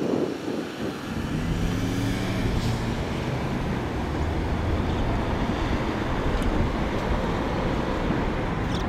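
Steady road traffic noise from cars passing on a busy multi-lane road, with a low steady hum standing out for a couple of seconds about a second in.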